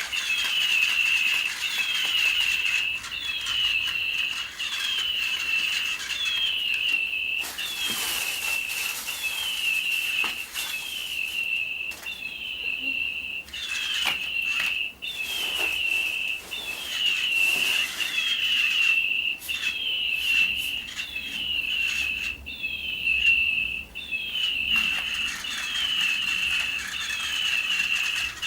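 Electronic toy bird chirping over and over, about once a second, each chirp a short falling whistle that levels off, with bursts of rustling noise in the middle.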